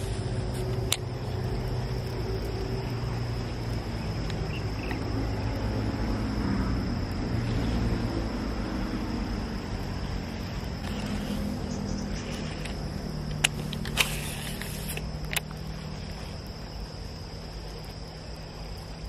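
A steady high-pitched insect drone over a continuous low rumble, with a few sharp clicks past the middle.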